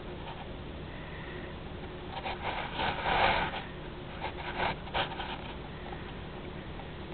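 A cat sniffing and nuzzling right against a camera's microphone: a breathy, rustling burst about two to three seconds in, then a few short scuffs, over a steady low hum.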